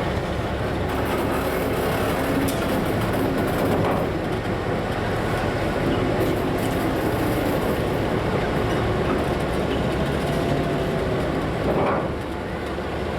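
Taiwan Railway passenger train hauled by an R37 diesel locomotive, running steadily with rail noise and a low engine hum.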